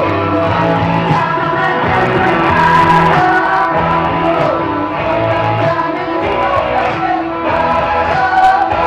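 Loud rock music with electric guitar and singing.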